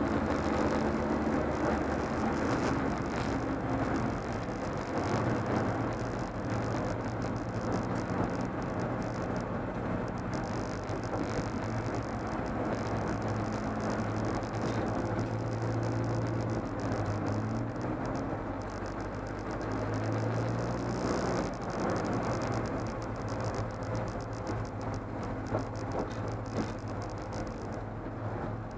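BMW E30 318is race car's 1.8-litre four-cylinder engine running at fairly steady revs, heard from inside the stripped cabin, with road and wind noise underneath.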